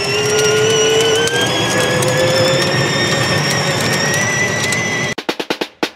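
Electric drive motor and gearbox of a modified Power Wheels ride-on toy car, whining with a pitch that rises slowly as the car picks up speed, with scattered clicks over it. The whine cuts off about five seconds in, followed by a quick run of clicks.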